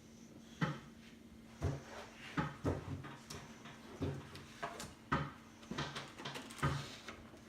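Packaging and crate contents being handled and set down: about a dozen irregular knocks, taps and rustles spread over several seconds.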